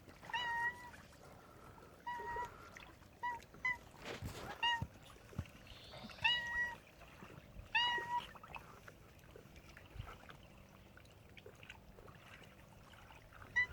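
A cat making a run of short, high-pitched calls, each a brief steady tone with a quick rise at the start. There are about seven of them in the first eight seconds, then quiet.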